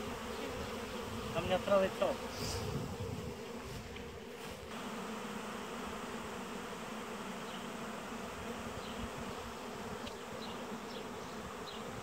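A swarm of honeybees humming steadily, many bees in flight at once around the hive box. A man's voice speaks briefly about two seconds in.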